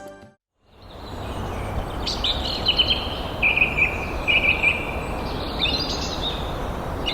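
Steady rush of river water with songbirds calling over it from about two seconds in: quick chirps, then a run of repeated high notes.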